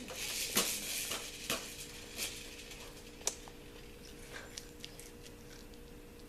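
Scattered light clicks and knocks with some rustling, busiest in the first two seconds, with one sharper click about three seconds in; a faint steady hum underneath.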